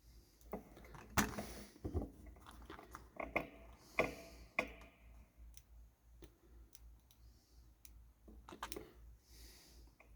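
Scattered clicks, taps and short rustles from handling small electronic parts and tools while assembling a circuit-board kit. The loudest clicks come about a second in and about four seconds in.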